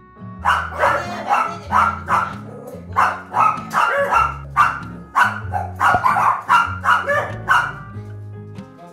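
Small dog barking rapidly, about twenty sharp barks in quick succession that stop shortly before the end, with background music underneath.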